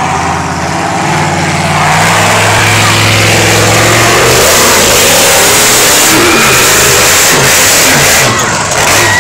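Monster truck engine revving hard, very loud; the engine note climbs and grows louder about two seconds in, then holds at full throttle.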